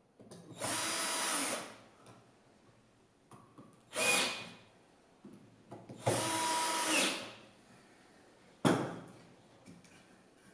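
Cordless drill-driver driving screws into wooden blocks in three runs: about a second, then a short half-second burst, then another second or so. A sharp knock comes near the end.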